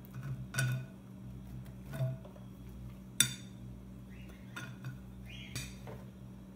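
Glass bowls and a spatula clinking and knocking as diced zucchini is tipped from a small glass bowl into a larger glass mixing bowl: a few separate clinks, the sharpest a little past three seconds in.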